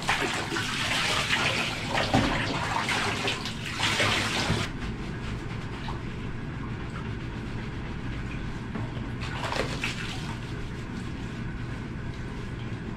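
Water running and splashing in a bathtub while a dog is washed. The water noise stops abruptly about five seconds in, leaving a quieter steady background with a low hum.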